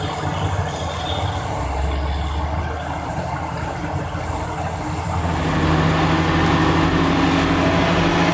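Heavy vehicle engines running under load, a continuous low hum that grows louder and steadier about five seconds in.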